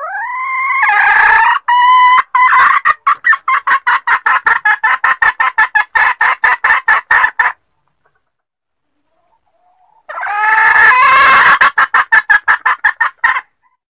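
Female junglefowl calling: a drawn-out rising note breaks into a long run of rapid clucks, about five a second. After a pause of two or three seconds comes a second, shorter bout. It is a hen's call to wild males, the kind played as a lure.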